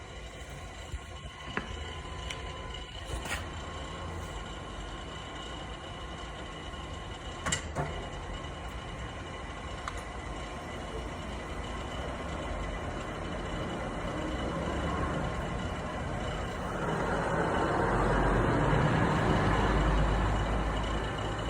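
Matsumoto Kikai PS-4F welding positioner running its table drive in reverse rotation: a steady machine hum with a thin whine, broken by a few sharp clicks in the first several seconds. A louder rumbling noise swells in about two-thirds of the way through and peaks near the end.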